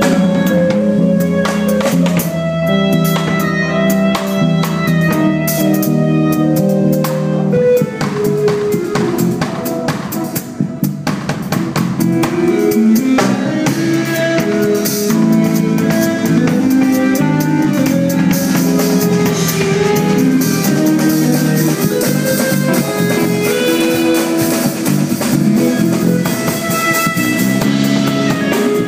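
Live band music: a drum kit with cymbals, electric bass and keyboards playing a busy instrumental passage together.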